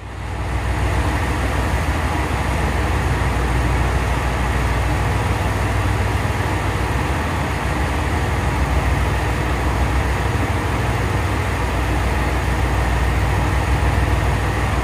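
Diesel train engine running steadily: a deep, even engine hum under a constant rushing noise, with no rise or fall of a train passing.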